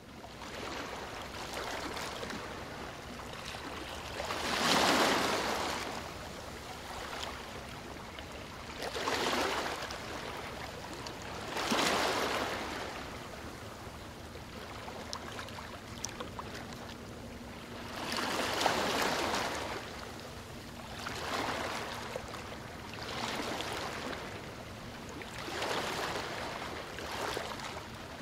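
Sea water washing and splashing, swelling into louder surges of splash every few seconds as small waves break against a rock.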